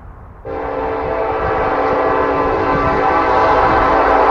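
Diesel freight locomotive's air horn sounding one long blast, several chimes together in a chord. It starts abruptly about half a second in and grows slightly louder as the train approaches.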